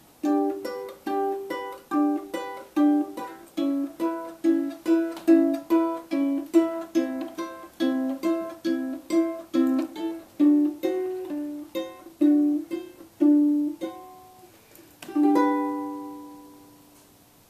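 Ukulele playing the song's instrumental ending: chords struck at about two to three strokes a second, a short pause, then one last chord left to ring out and fade.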